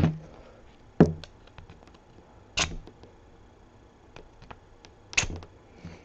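Scattered clicks and taps of a mailed package of trading cards being worked open by hand: three sharper knocks, about a second in, midway, and near the end, with a few faint ticks between.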